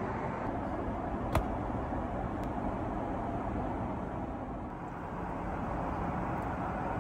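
Steady rush of Airbus A380 cabin noise from the engines and airflow, with a sharp click a little over a second in and a fainter click about a second later.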